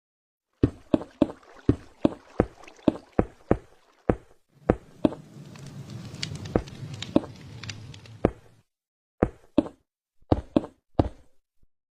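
A series of sharp knocks, about two a second, with a low rushing noise underneath in the middle stretch.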